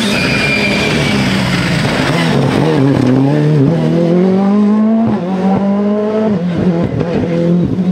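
Ford Fiesta rally car's turbocharged four-cylinder engine passing at close range. Its pitch drops and climbs as it brakes and changes gear through the bend, then rises through the gears as it pulls away, with quick rev jumps between shifts.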